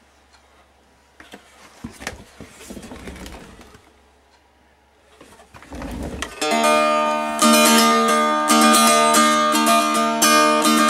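Homemade three-string wooden box guitar: rubbing and light knocks as it is handled, then from about six seconds in it is plucked and strummed, playing loud ringing notes.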